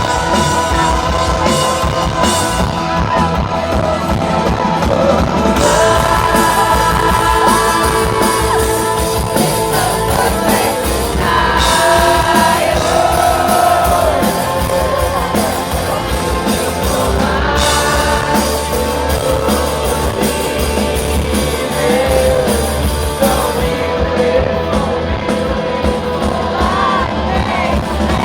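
Rock band playing live with a singer, heard in a large hall: a sustained sung melody over guitars and drums.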